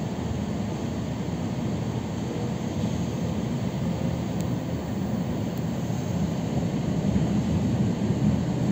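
Electric commuter train running, heard from inside the passenger car: a steady low rumble that grows a little louder near the end.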